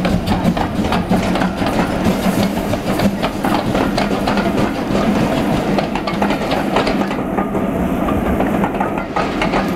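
Steam locomotive 4566, a GWR 4500 class 2-6-2 prairie tank, and its coaches running past, with wheels clicking and clattering over the rail joints throughout, over a steady low hum.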